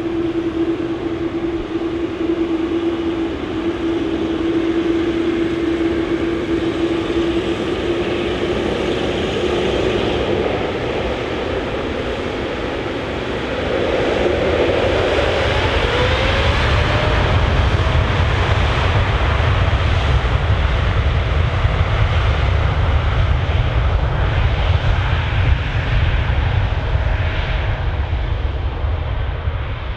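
Airliner engines running, with a steady whining tone at first. From about halfway through it gives way to a louder, deep rumble.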